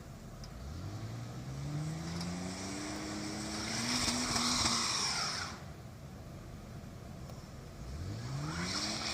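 A motor vehicle's engine revving up twice, each time a rising whine climbing over a few seconds with a high hiss at its peak; the first rev cuts off about five seconds in and the second starts near the end.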